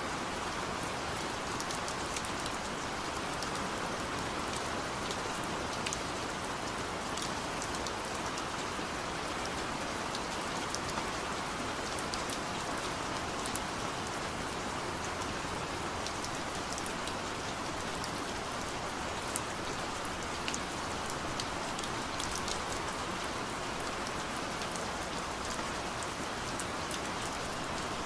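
Steady rainfall: an even hiss of rain on a surface, with scattered sharp drop ticks.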